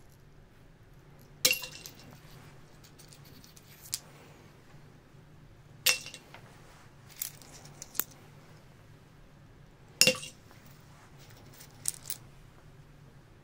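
Pieces of sea glass dropped one at a time into a glass carafe of water, each landing with a clink that rings briefly against the glass. Three clear clinks come about four seconds apart, with lighter ticks between them.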